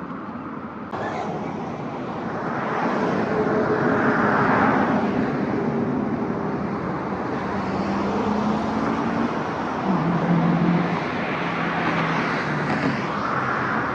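Road traffic running steadily, with vehicles passing close and the sound swelling about four seconds in and again near the end.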